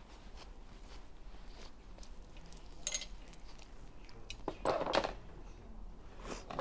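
Faint rustling and small clicks of grooming tools being handled and drawn through a wire-haired terrier's coat, with a short rush about three seconds in and a louder, longer scraping rush around four and a half to five seconds in.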